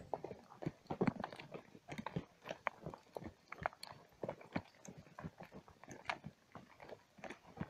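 Horse hooves crunching and scraping on a dry, stony dirt track at a walk: a quick, irregular run of clicks and crunches.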